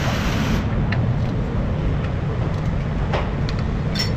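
Steady low workshop rumble with a few light metallic clicks from a socket tool working on the rear stabilizer link. A hiss cuts off about half a second in.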